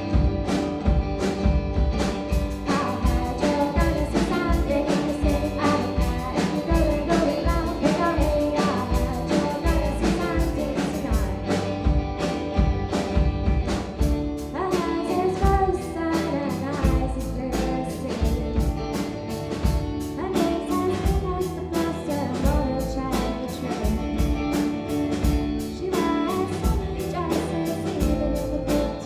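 A young rock band playing a song: singing over guitar, with a steady drum beat.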